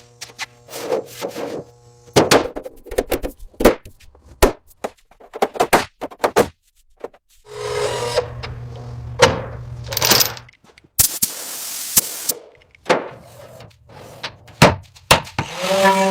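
A run of separate knocks, clunks and scrapes from tools at work, with a stretch of steady machine hum about halfway through and a brief burst of hissing a little later.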